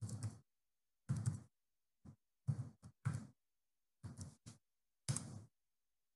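Computer keyboard keys tapped in about nine short clusters as a password is typed in. Each cluster is faint and stops abruptly, with dead silence between.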